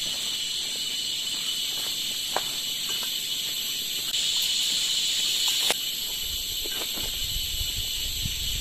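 Steady high-pitched buzzing drone of forest insects, swelling louder for a second or two about four seconds in. Scattered small clicks and snaps run through it, with a low rumble near the end.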